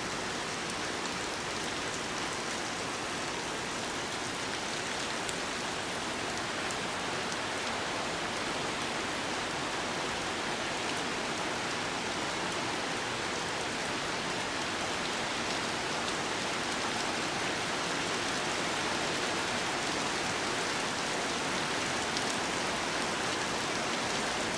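Steady rain falling, an even hiss with a few sharper drops ticking now and then.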